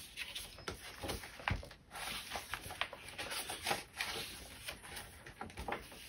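Pages of a handmade paper journal being turned and handled: soft paper rustling with scattered light taps and crinkles.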